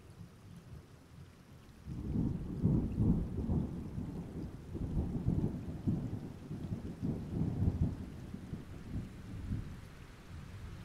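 Low rolling rumble that comes in suddenly about two seconds in, swells and ebbs for several seconds, and dies away toward the end.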